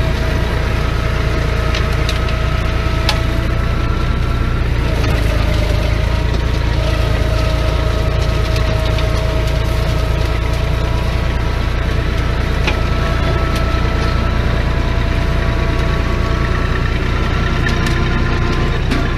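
Tractor running with a PTO-driven, belt-driven hammer-flail mower (GeoTech Pro KFM 170M) working through grass and brush: a loud, steady drone with a steady whine over it and a few sharp ticks.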